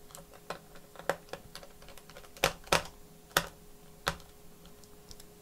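Irregular sharp clicks and taps of hard plastic and metal during laptop reassembly, with four louder knocks between about two and four seconds in.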